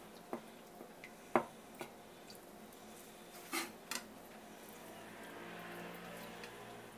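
A knife and fingers handle raw tuna collar meat on a wooden cutting board, giving scattered wet squishes and soft clicks. The sharpest knock comes about a second and a half in, and two more follow a little past the middle.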